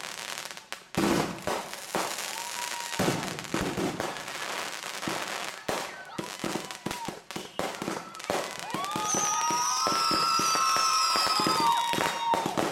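Finale barrage of consumer fireworks fired from a rack: rapid bangs and crackling bursts. Several whistles rise and hold their pitch, joined by high falling whistles, thickest in the last few seconds.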